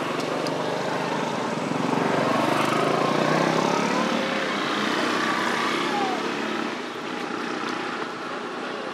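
Motorbike engine passing by on the road, swelling to its loudest a few seconds in and then fading away.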